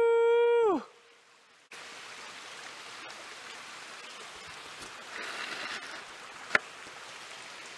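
A long, steady-pitched human howl or 'woo' call ends with a falling glide under a second in. After a moment of near silence, a small creek runs steadily, with one sharp click near the end.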